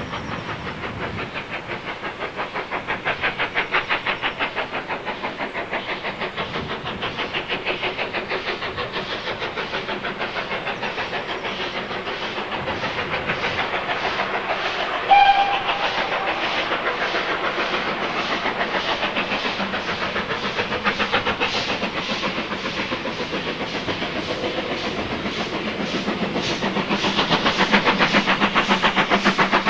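Steam locomotive working a train, its exhaust beating rapidly and evenly, with a short whistle blast about halfway through; the beats grow louder near the end as it draws closer.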